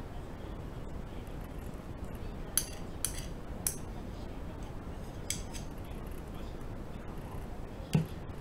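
A metal fork clinking and scraping against a white dish a few times as a fried egg is worked out onto toast. About eight seconds in, a dull knock as the dish is set down on the table.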